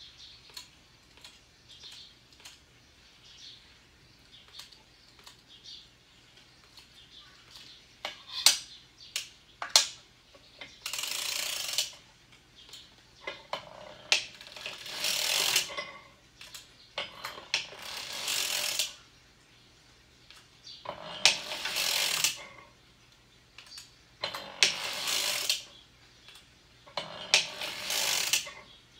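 Hand-cranked circular sock machine knitting rounds, its latch needles clattering as the cams pass over them. The clatter comes in bursts of a second or two, about every three seconds, after several seconds of light clicking.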